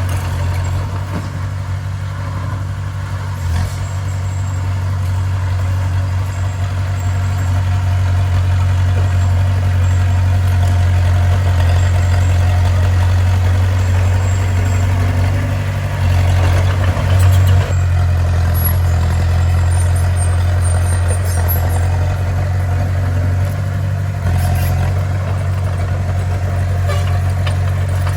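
Heavy diesel engine of a bulldozer running steadily under work, a low even drone that swells briefly a little past halfway through.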